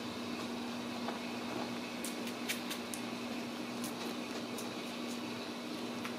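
Steady room hum and hiss with a low, even tone running under it. A scatter of faint small clicks starts about two seconds in.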